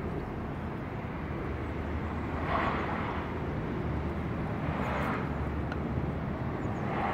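Steady low outdoor rumble with three short, muffled mid-pitched noises about two seconds apart.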